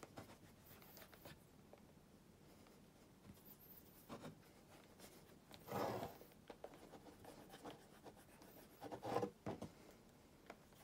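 Faint rubbing of fingertips working beeswax shoe cream into the leather of a black dress shoe. A few louder short handling knocks come from the shoe and cream tin, the loudest about six and nine seconds in.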